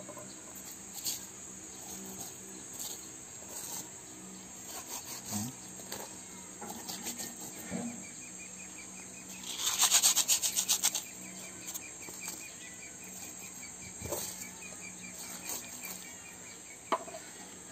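Crickets chirping steadily in the background, with small handling clicks and, about ten seconds in, a brief rapid rattling.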